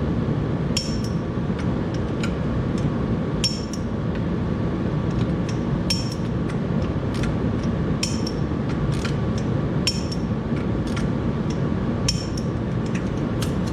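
Sharp metallic clicks every second or two, each with a brief ring, from wrench work on the tractor's flywheel bolts, over a steady low hum.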